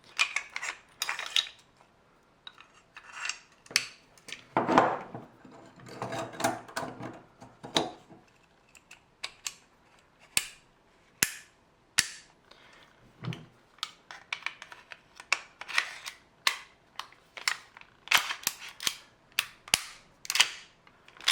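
Metal parts of a full-metal Swiss Arms 1911 CO2 air pistol clicking and scraping as they are handled, with many sharp metallic clicks and a longer stretch of scraping and rubbing about five to eight seconds in.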